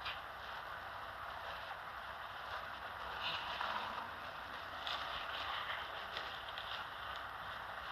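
Bus cabin noise: the bus's engine and running gear give a steady hum, with a few short light rattles or clicks over it.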